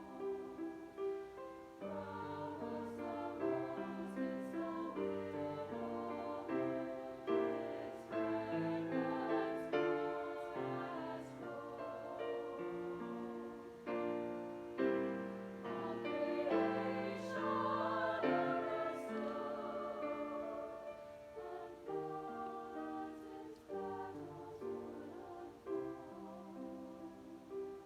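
Chamber choir singing in several-part harmony, holding chords that change about every second, growing louder through the middle.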